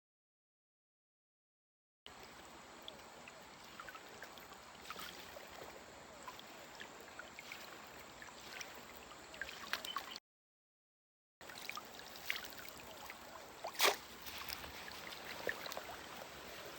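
Shallow river water flowing and trickling, with small scattered splashes and one louder splash about three-quarters of the way through. The sound drops to dead silence twice, briefly, at edit cuts.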